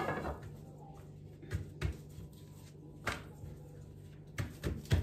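Hands stretching and pressing a thin sheet of pide dough on a silicone pastry mat, with about six light, sharp knocks and taps spread through, otherwise quiet.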